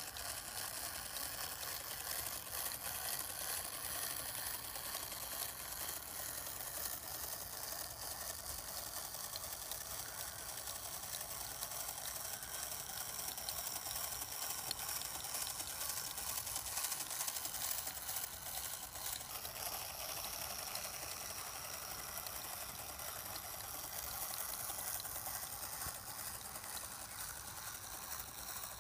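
Brass gear train of a clockwork orrery turning, a steady whirr with fine, rapid ticking of meshing gear teeth.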